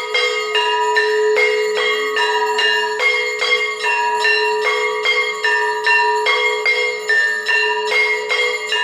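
Temple bells rung for aarti, struck steadily about twice a second, with the pitch of the ringing shifting from stroke to stroke over a constant hum.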